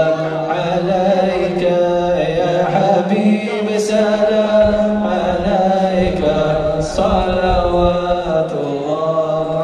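Men's voices chanting a devotional salawat in unison, blessings on the Prophet Muhammad sung in long, drawn-out melodic phrases.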